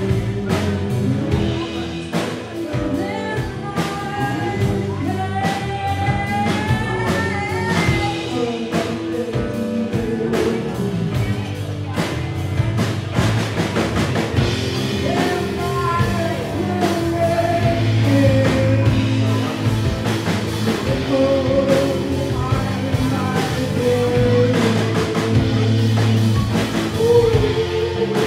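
Live rock band playing a song: a woman sings over acoustic guitar, electric guitar, bass and a drum kit keeping a steady beat.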